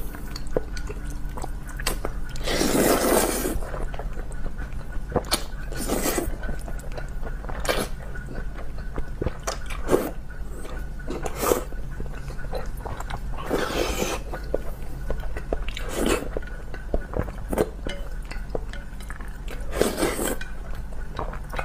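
Close-up slurping of saucy spicy instant noodles: several long slurps a couple of seconds apart, with wet chewing and chopsticks clicking on a plate in between.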